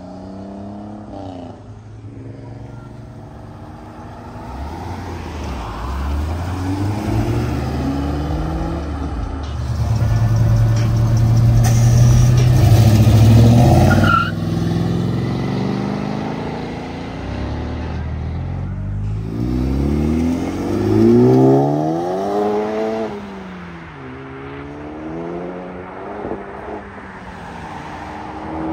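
Modified cars driving off one after another, their engines revving up and dropping back through the gears. The loudest holds a steady note from about ten seconds in and then drops off sharply. Another revs up hard around twenty seconds in.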